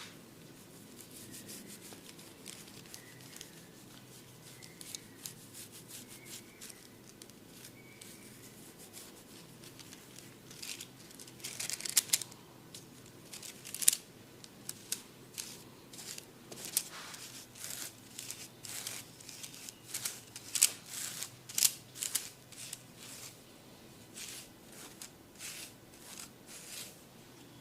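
Close-up head-massage sounds of hair being worked by hands and a comb: an irregular run of sharp crackling clicks and scratches. They are faint at first and grow louder and denser after about ten seconds.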